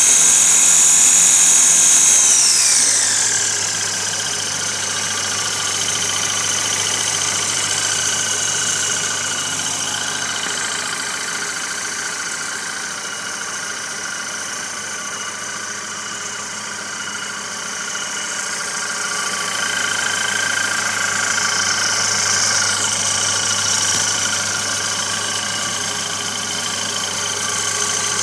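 Kia Sportage 2.0 SOHC engine running with its belt-driven York 210 air compressor, a steady mechanical run with a high-pitched whine over a low hum. The whine falls in pitch and quietens about two to three seconds in, then holds steady.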